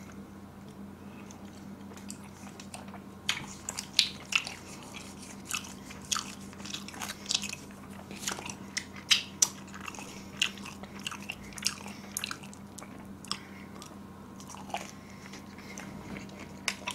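A person chewing a mouthful of pizza close to the microphone, with many short crunches and mouth clicks starting about three seconds in and thinning out near the end.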